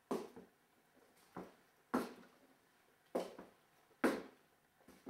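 Slow footsteps on a hard floor, about one a second, each a short knock that dies away quickly, sometimes doubled.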